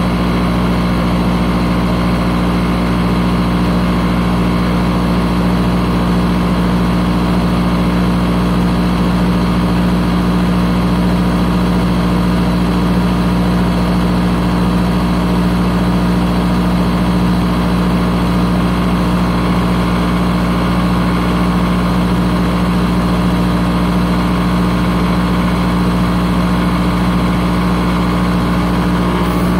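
Kaeser SK 15 15 HP rotary screw air compressor running steadily: a loud, even hum with a strong low tone and no change in pitch or level.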